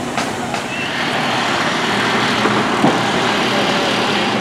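A motor vehicle's engine and road noise, running steadily and growing slightly louder after the first second.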